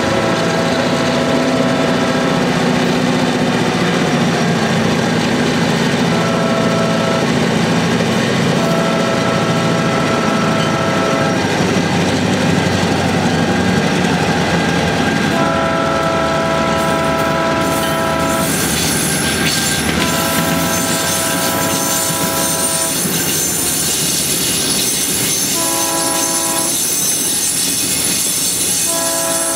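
The horn of a high-hood GP38-2 diesel locomotive, a Nathan P5 chime horn in poor health, sounds a series of long and short multi-tone blasts over the running engine and rolling train. From about two-thirds of the way through, a high-pitched wheel squeal joins in.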